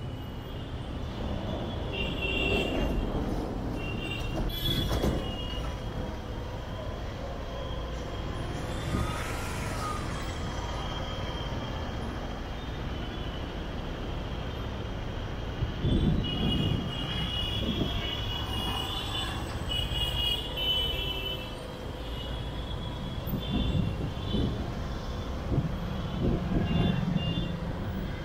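Street traffic and road noise from a car driving slowly in city traffic: a steady low rumble of engines and tyres, with short high-pitched tones coming and going, most often in the second half.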